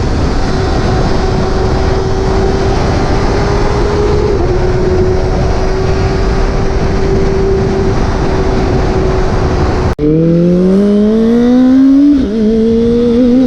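Motorcycle engine holding a steady speed under heavy wind rush. After a cut about ten seconds in it accelerates with rising pitch, dips at a gear change and climbs again.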